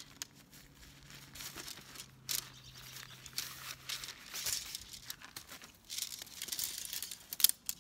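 Nylon stuff sack rustling and crinkling as shock-corded tent poles are pulled out of it, with a few sharp clicks near the end as the pole sections knock together.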